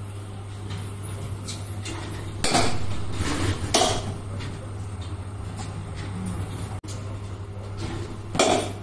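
Sharp knocks of baseballs in a batting cage: one about two and a half seconds in and another just before four seconds, then the loudest near the end as a bat swings into a pitched ball. A steady low hum runs underneath.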